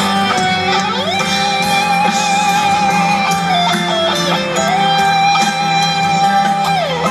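Live rock band playing, led by an electric guitar holding long sustained notes with vibrato. The lead slides up into a held note about a second in, then dips and climbs back a couple of times.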